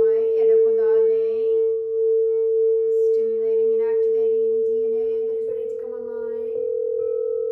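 Crystal singing bowl ringing a steady, sustained tone. A woman's voice sings wordless held notes over it at the start and again in the middle, and the bowl tone steps slightly higher about five and a half seconds in.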